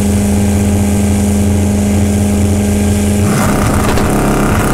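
Drag-race engines of an El Camino and a pickup truck held at a steady high pitch at the starting line. About three seconds in the note breaks up as they launch, and the engine pitch starts to climb near the end.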